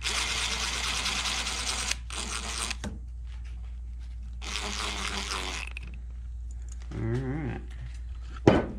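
Cordless drill/driver running small screws down into a Cummins VGT turbo actuator housing in three bursts: a long one of about two seconds, a short one, then one of about a second. A sharp click comes near the end.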